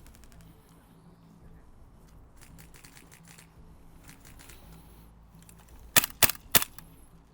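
Airsoft gun firing three quick sharp shots about six seconds in, after a stretch of quiet with faint clicks.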